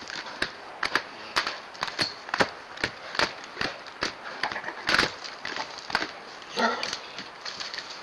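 Cow elk's hooves pounding and scuffing on dry dirt as she stomps and charges at a mountain lion: a run of sharp, irregular thuds and scrapes, two or three a second. A short animal cry breaks in about two-thirds of the way through.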